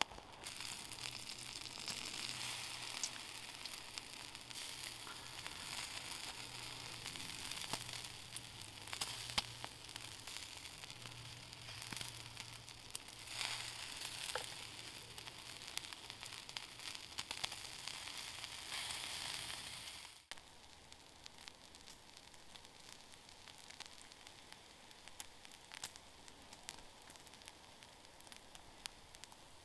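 Bacon strips sizzling directly on the glowing embers of a wood fire, with scattered pops and crackles. The sizzle is steady, then drops abruptly about twenty seconds in to a fainter sizzle and crackle.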